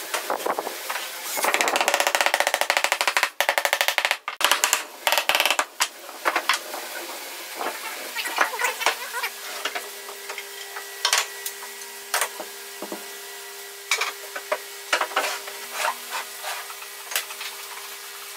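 Wooden folding-chair parts knocking and clacking against each other and the workbench as they are handled and fitted together, with two stretches of fast, dense rattling in the first few seconds. A faint steady hum runs under the knocks from about halfway.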